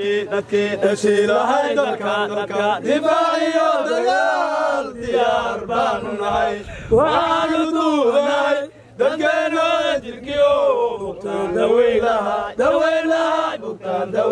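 Men's voices chanting a song in unison over a steady low drone, with one brief pause about nine seconds in.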